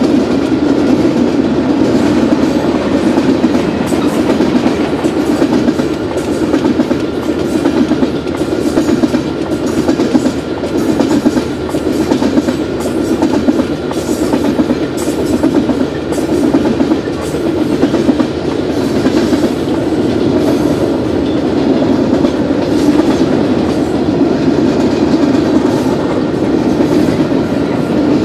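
Freight cars of a CP manifest train, tank cars and centerbeam flatcars, rolling steadily past at speed, with the wheels clattering over the rail joints.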